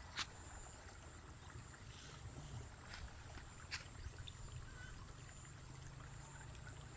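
Faint outdoor field ambience: a low steady rumble with a thin, high, steady whine over it and a couple of faint clicks.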